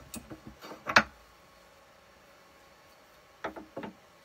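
Metal clicks and knocks from a bolt-action rifle's action and barrel being handled in a barrel vise: a few light clicks, a sharper knock about a second in, then two more short clicks near the end.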